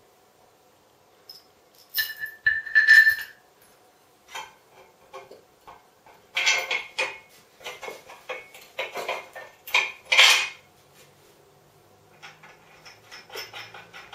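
Metal assembly hardware clinking and knocking as bolts, washers and a small metal bracket plate are handled and fitted against the metal tubes of a TV stand base. There are a few clinks with a brief ring about two seconds in, a dense run of knocks and clinks from about six to ten seconds, and lighter tapping near the end.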